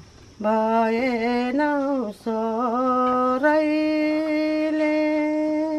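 An elderly woman singing a traditional Nepali folk tune unaccompanied, in slow drawn-out phrases. Two shorter phrases carry wavering ornaments, and the last is one long held note.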